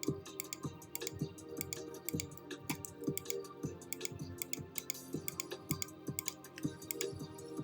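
Background music of sustained tones, with sharp clicking percussion several times a second.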